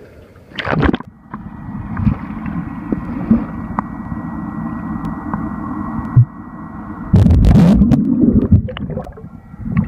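A person falling into a swimming pool with a splash about half a second in, then steady bubbling, churning water, with a louder burst of splashing and turbulence about seven seconds in.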